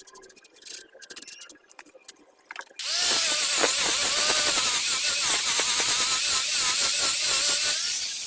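Small clicks and handling noises, then about three seconds in a handheld power tool starts and runs loudly on wood, its pitch wavering as the load changes.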